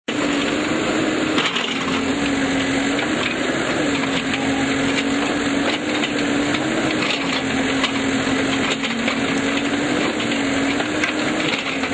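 Diesel engine of heavy construction machinery running steadily, its pitch stepping up and down every few seconds as it works, over a dense crackling, crunching noise.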